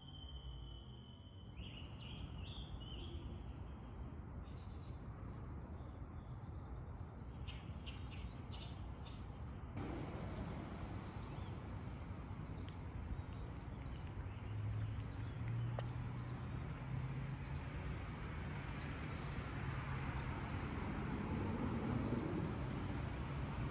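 Faint outdoor ambience: a steady background hiss with scattered small bird chirps, and a low hum building over the second half.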